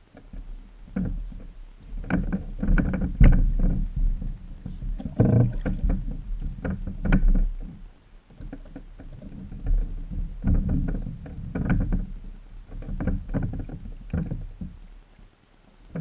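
Irregular knocks, thumps and clatter from someone handling gear and moving about on a small homemade boat's wooden deck, in bursts of a second or two with short pauses, over a steady low rumble.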